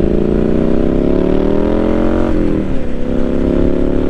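2017 Triumph Street Scrambler 900's parallel-twin engine accelerating, rising in pitch. About two seconds in, the pitch drops sharply as the rider shifts up a gear, and then it pulls and rises again.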